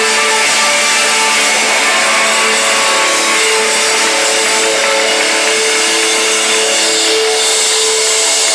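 Live rock band with electric guitars and drums playing loud through a concert PA, heard from among the audience. A long held note sounds through the second half.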